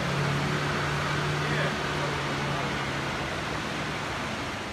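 Rushing mountain stream, with a Land Rover Defender 110's engine running low and steady as it drives down the dirt track; the engine tone drops away about three seconds in.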